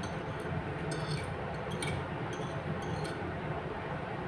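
Fork and spoon clinking lightly against a plate several times while eating, over a steady low background hum.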